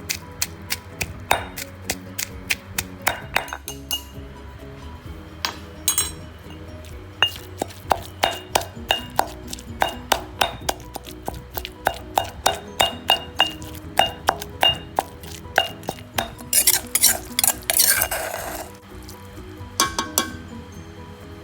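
Kitchen utensils knocking and clinking in a quick run of sharp strikes, about two to three a second, with a short rush of noise near the end, over background music.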